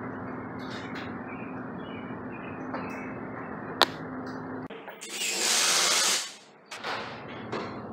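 A steady low hum with one sharp click, then, after a break, a cordless drill runs for about a second against the ceiling at the opener rail, a loud high whir that stops abruptly.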